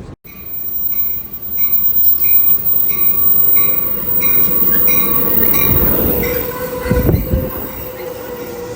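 Train running on the rails, loud and rumbling, with a steady high squeal of wheels on rail. A short ring repeats about twice a second throughout, and the rumble swells to its loudest about seven seconds in.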